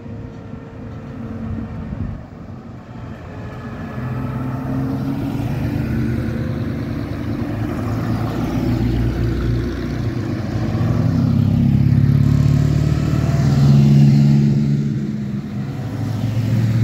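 Engines of vintage Bugatti cars driving past one after another, the sound growing louder as each car comes close and loudest about three-quarters of the way through.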